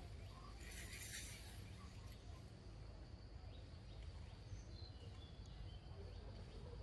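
Faint forest ambience: a steady high insect drone over a low background rumble, with a brief rush of hiss about a second in.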